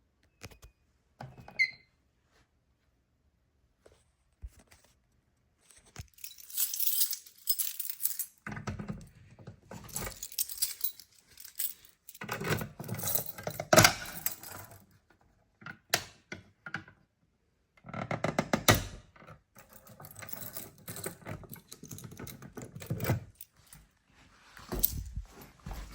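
Handling noise: a few clicks at first, then from about six seconds in a run of irregular rattling, rustling and knocks.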